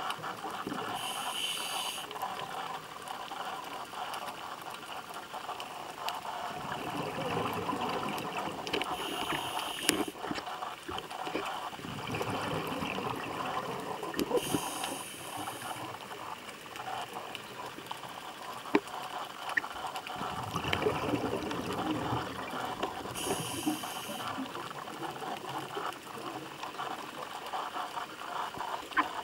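A scuba diver breathing through a regulator, heard underwater: a hiss of inhaled air comes roughly every eight seconds, four times, and gurgling bursts of exhaled bubbles fill the time between.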